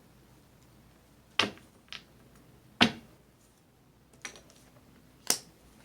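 Tarot cards being handled: a handful of separate sharp taps and snaps, a second or so apart.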